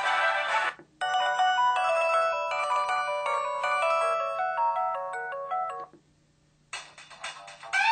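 LG-KF1000 mobile phone ringtones played in turn: one tone cuts off in the first second, then a synthesized polyphonic melody of steady electronic notes plays for about five seconds and stops, and after a short gap another tone begins near the end.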